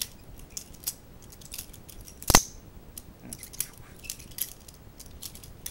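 Butterfly knife being flipped open and closed: a rapid scatter of light metallic clicks from the swinging stainless steel handles and pivots, with one loud clack a little over two seconds in as the handles snap together.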